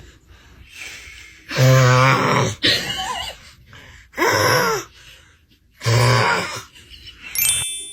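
A man snoring: loud snores come about every two seconds, with shorter, quieter sounds in between.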